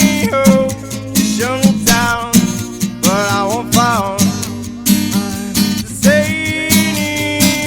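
Live music: strummed acoustic guitar over a steady beat, with a melody line that slides up and down in pitch.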